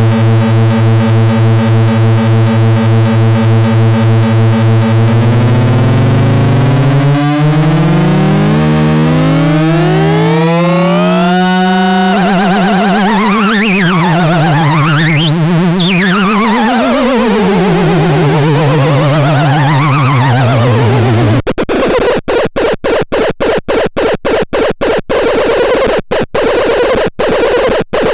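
Antisilvestron synthesizer playing a harsh, buzzy drone full of overtones. Its pitches slide upward, then swoop up and down several times, and about three-quarters of the way through the sound is chopped into rapid, irregular stutters.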